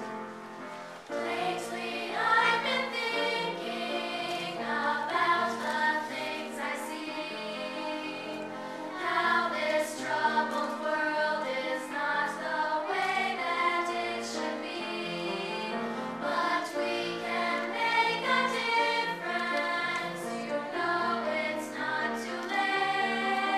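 Girls' chorus singing a song with piano accompaniment; the voices come in about a second in after a few moments of piano alone.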